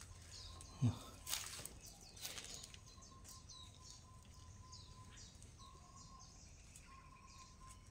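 Faint calls of wild animals: a run of short, high, falling chirps over a thin steady tone that breaks off a few times. A couple of soft thumps about a second in.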